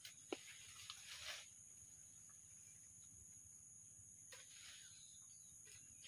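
Faint, steady high-pitched insect drone in two even tones, with brief rustling of leaves and branches about a second in and again a little past four seconds, and one sharp click just after the start.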